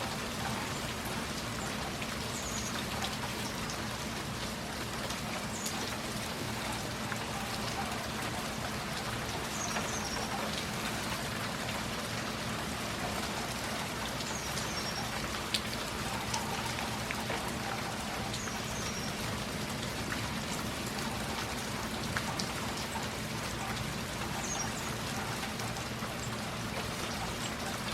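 Steady heavy rain falling and splashing on surfaces, with a bird's short high chirp every few seconds over it.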